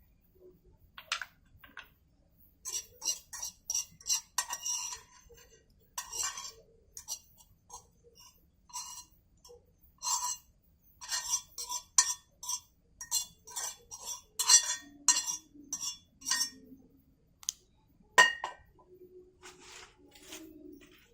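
Metal cooking utensils clinking against cookware: many light, sharp clinks in irregular runs, with a louder knock about 18 seconds in.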